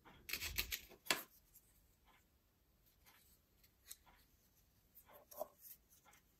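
Hard plastic clicking and rubbing as a phone holder's handlebar clamp is handled and its inserts are pushed back into place. A quick flurry of clicks comes in the first second, the sharpest about a second in, followed by a few soft scattered clicks.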